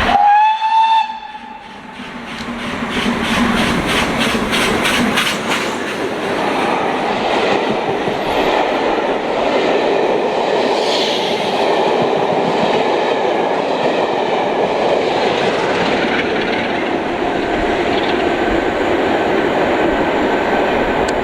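A short, loud whistle blast from a steam locomotive, rising briefly in pitch as it opens, then a train passing: a quick run of rhythmic beats followed by a steady rumble of the wheels and carriages.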